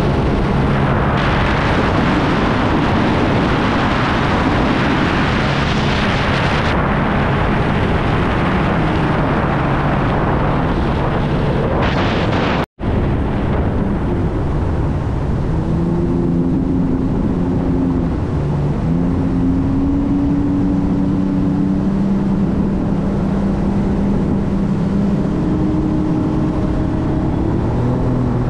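Sea-Doo personal watercraft engine running steadily on the water, a droning engine note that shifts slightly in pitch over the rush of water and wind. The sound cuts out for a moment about halfway through, then resumes.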